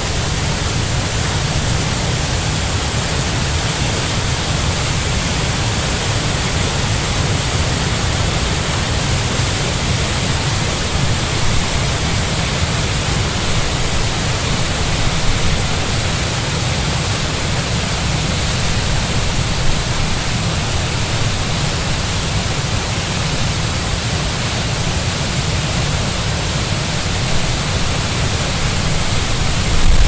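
Waterfall swollen with heavy rain: a loud, steady rush of falling and churning water.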